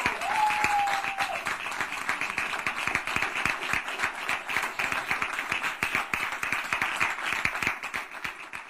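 Audience applauding, many hands clapping, fading out near the end.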